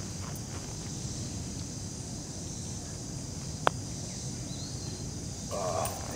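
A single sharp click of a putter striking a golf ball, about three and a half seconds in, over a steady high hum of insects.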